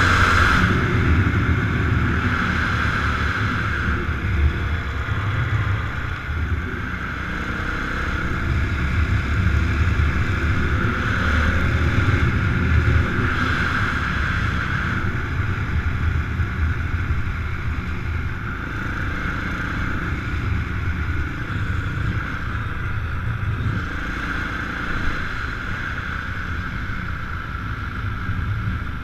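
Motor vehicle engines, most likely dirt bikes or four-wheelers, running steadily under a continuous rumble with wind noise on the microphone.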